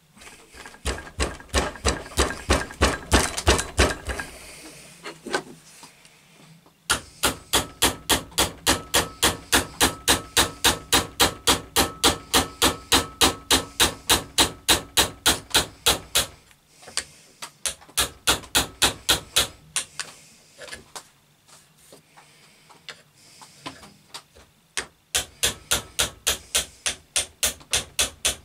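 Fast back-and-forth hand-saw strokes, about four a second, cutting the protruding wedge and handle end flush with the top of the axe head held in a vise. The strokes come in several runs with short pauses, the longest run about nine seconds.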